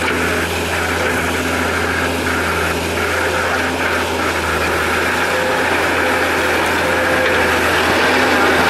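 Diesel engine of a JCB wheel loader running steadily as the machine pushes mud with its front bucket.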